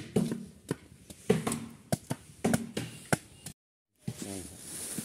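Steady chopping into a wooden log with a blade, sharp strokes at nearly two a second, with voices talking between the strokes. The sound cuts out briefly about three and a half seconds in, then chopping and voices resume.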